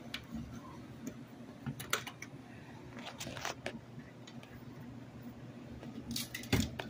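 Steady heavy rain falling, with scattered sharp ticks and a thump near the end.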